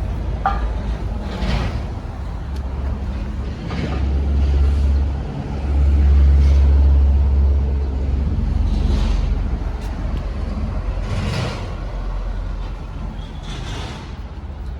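SDEC 300 kW diesel generator set running, a loud low engine rumble that swells louder for a few seconds around the middle, with brief bursts of hiss every couple of seconds.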